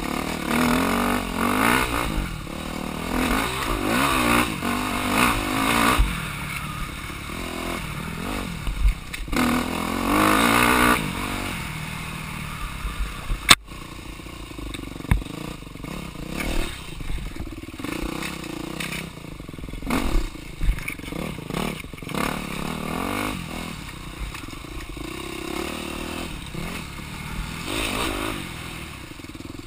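Dirt bike engine revving up and down in repeated bursts while riding a rough woods trail, with clattering from the bike over the ground. A single sharp knock, the loudest sound, comes about halfway through.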